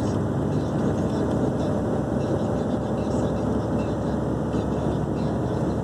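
Inside the cab of a 420-horsepower truck tractor unit: steady engine and road drone as it drives under a 31-tonne load, held at the most speed it can manage.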